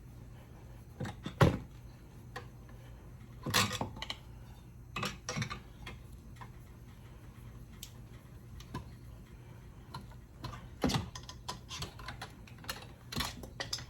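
Irregular knocks and clicks from a car jack being let down and handled around a motorcycle rear tire just after breaking its bead, the sharpest about one and a half seconds in, over a steady low hum.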